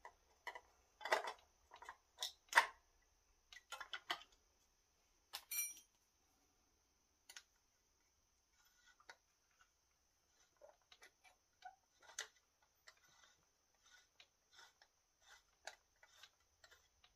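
Scattered small metallic clicks and knocks from a guide bar being fitted onto an ECHO CS-4310SX chainsaw's bar mount and handled with a small metal tool. The louder knocks come in the first few seconds, then fainter, sparser ticks.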